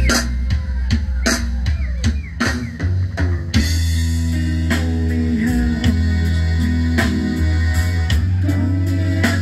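Live band playing an instrumental passage. A drum kit keeps a steady beat with kick, snare and rimshot hits, over bass guitar, with accordion notes held above.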